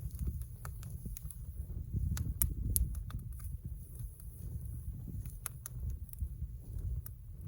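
Campfire crackling, with scattered sharp pops over a steady low rumble of wind on the microphone. The pops and the rumble are loudest about two to three seconds in.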